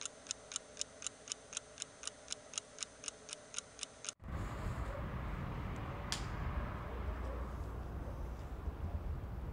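Clock-like ticking, even and quick at about four ticks a second, that cuts off abruptly a little over four seconds in. It gives way to a steady low rumble of night street ambience, with a single sharp click about two seconds later.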